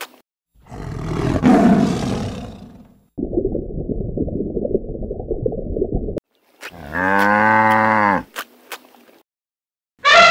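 A string of separate animal sound effects. First a harsh, noisy call of about two seconds, then a low rumbling noise for about three seconds, then a cow mooing once for about a second and a half.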